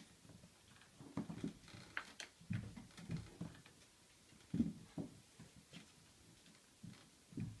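Kittens scuffling at the gap under a door: irregular soft thumps and bumps of paws and small bodies against the door and the tile floor, with light scratching. The loudest thump comes about four and a half seconds in.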